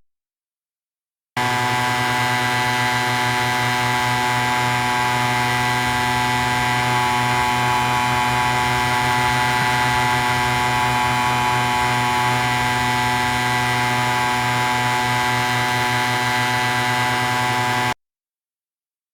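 Motor scooter engine running at a steady, unchanging speed, an even buzzing drone. It starts abruptly about a second in and cuts off abruptly near the end.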